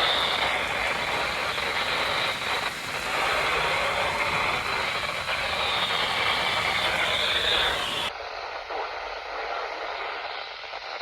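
Radio static: a steady hiss from a receiver on a weak or unmodulated channel, with no clear speech. About eight seconds in it turns thinner and quieter.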